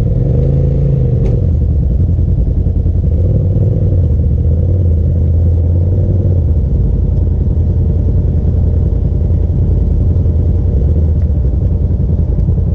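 Polaris RZR side-by-side's engine running steadily, with a constant low rumble and no revving.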